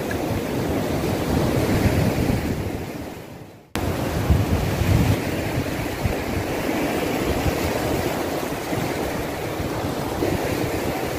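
Ocean surf washing in around the rocks, with wind buffeting the microphone. The sound fades down about three and a half seconds in, then cuts back in abruptly.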